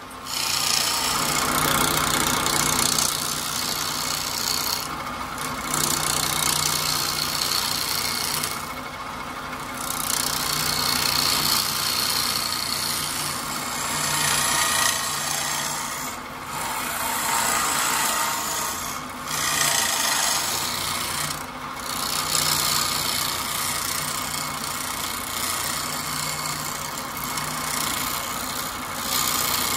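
Turning tool cutting into a spinning wooden disc on a wood lathe: a continuous scraping hiss as shavings come off, broken by about five brief pauses where the tool leaves the wood.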